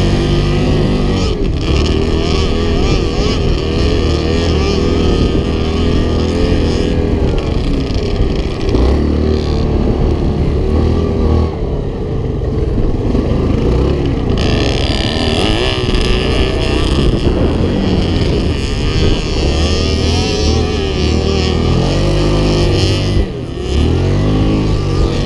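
Yamaha Grizzly 700 ATV engine running under load, its pitch rising and falling as the throttle opens and eases, over a steady rush of wind noise on the mounted camera. The engine briefly drops away near the end.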